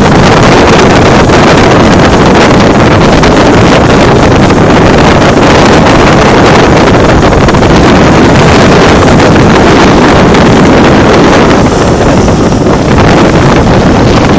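Strong wind buffeting the microphone in a loud, constant roar, with the turboprop engines of a de Havilland Canada DHC-6 Twin Otter running beneath it as the aircraft moves off. The roar eases slightly near the end.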